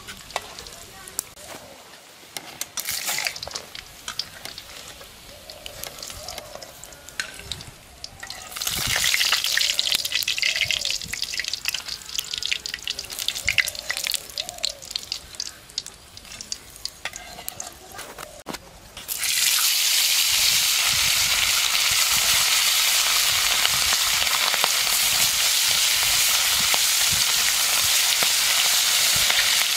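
Lentil dumplings (bori) frying in oil in a karahi, with a metal spatula clicking and scraping against the pan. About two-thirds of the way through, whole mrigal fish go into the hot oil and a loud, steady sizzle takes over.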